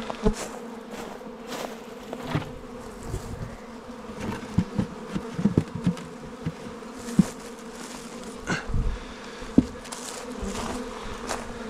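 Freshly hived package honeybees buzzing in a steady hum around the hives. Scattered knocks and clatter come through it as the wooden hive covers and boards are set in place.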